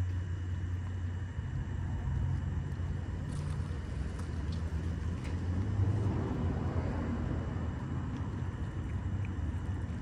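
A steady low mechanical rumble, with faint short clicks of cats chewing and licking wet food from cans close by.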